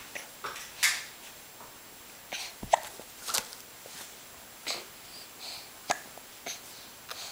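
A baby hiccuping: a string of short, sharp hiccups, about one a second at uneven spacing.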